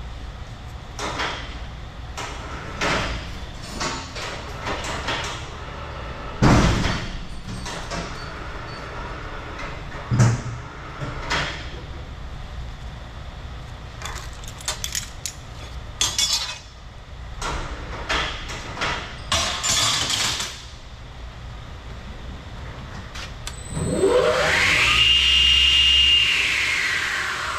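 Scattered knocks and clatter, then about 24 seconds in the chop saw's 3 hp electric motor starts: its whine rises quickly to a steady high pitch and is the loudest sound. Just before the end the pitch begins to fall as the motor is switched off and starts to coast down.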